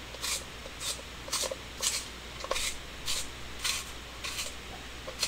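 Prismacolor 2B graphite pencil being sharpened in a clear plastic hand-held box sharpener. The blade shaves the wood and lead with a dry, scraping rasp at each twist, about two a second.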